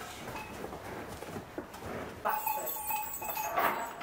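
Sounds of cattle in a barn. A little over two seconds in, a steady held tone comes in over them.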